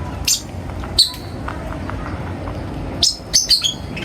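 Birds chirping in short, sharp, high calls: one about a third of a second in, another at about one second, and a quick run of several near the end, over a steady low background rumble.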